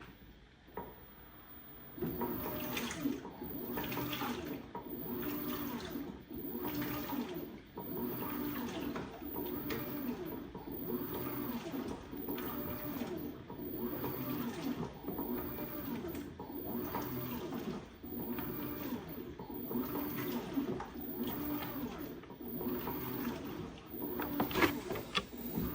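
LG 16 kg washing machine agitating a load of towels in water. It starts about two seconds in: a rhythmic swishing and sloshing that surges and eases every second or two as the drum turns back and forth.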